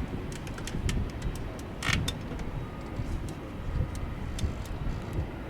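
Airbus A330-900's Rolls-Royce Trent 7000 jet engines rumbling on departure, with wind buffeting the microphone.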